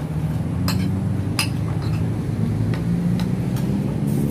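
Spoons, bowls and food containers clinking a handful of times as people eat at a table, over a steady low background hum.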